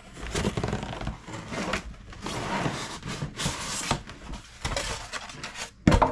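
Cardboard box and paper being handled during unboxing: rustling, scraping and light knocks throughout, with one sharp knock just before the end.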